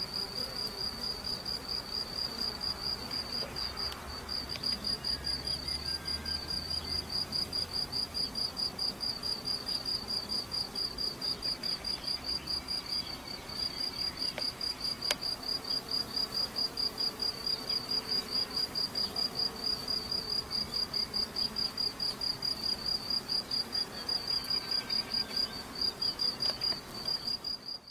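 A cricket chirping in rapid, regular pulses on one high note, about five a second, pausing briefly twice. Underneath is the faint hum of honeybees flying at the hive entrance.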